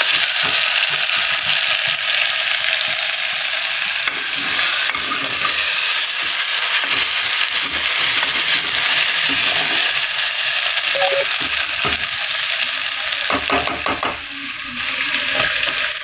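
Mutton with ginger-garlic paste sizzling steadily as it fries in oil in an aluminium pressure cooker, stirred with a steel ladle scraping the pot. A few sharp clinks come near the end, and the sizzle briefly dips.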